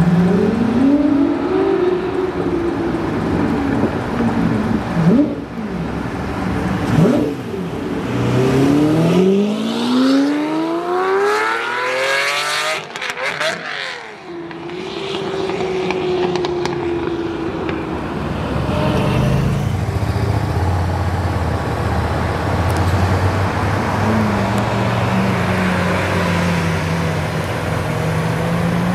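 Lamborghini Murciélago's V12 revving, then accelerating hard away, its pitch climbing steeply through the gears with a shift about two-thirds of the way through, then dropping and fading. Near the end a second engine idles low and then revs up.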